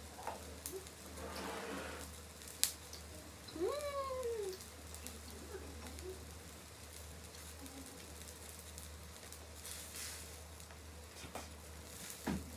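Quiet table sounds of a meal: chopsticks clicking against dishes over a low steady hum. About four seconds in comes one short vocal sound, like a hummed "mm", that rises and then falls in pitch.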